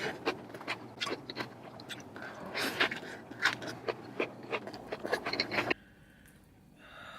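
Close-miked chewing and biting of crunchy food, a rapid run of crisp crunches that cuts off suddenly about two-thirds of the way through, followed by a soft breathy sound near the end.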